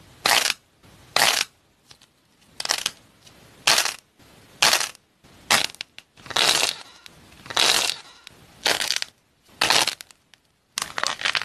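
Crunching as hands squeeze and crush silver-foil-coated teardrop figures with a crumbly filling, about ten separate crunches roughly a second apart, then a quick run of smaller crunches near the end.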